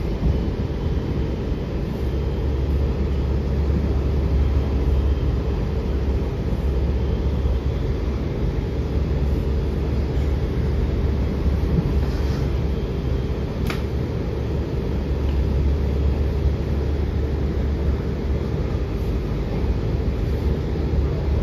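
Inside a Washington Metrorail Silver Line train car running between stations: a steady low rumble with a faint constant hum, and one brief sharp click about fourteen seconds in.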